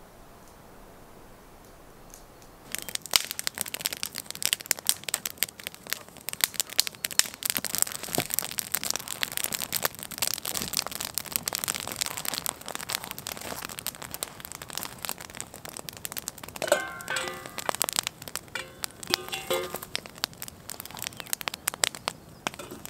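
Wood campfire crackling and popping, starting about three seconds in and keeping on densely. A few short goose honks come about three-quarters of the way through.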